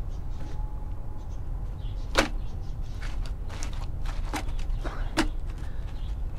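Wet clay being packed by hand into a wooden mould, giving a handful of short sharp clicks, the loudest about two seconds in, over a steady low rumble.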